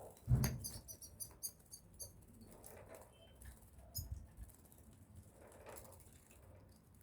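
Small pet birds bathing: a thump just after the start, then a quick run of very high chirps for about two seconds and another brief chirp about four seconds in, with soft fluttering and patter in the water.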